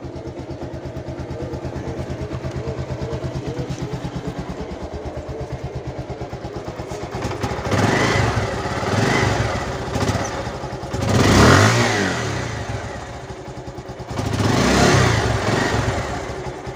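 Motorcycle engine running steadily, then revved three times, each surge rising and falling over a second or two.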